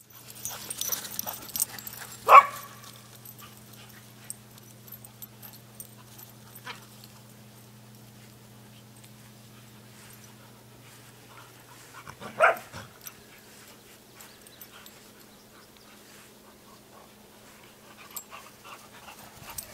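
A dog barks twice, about ten seconds apart, with a fainter yip in between.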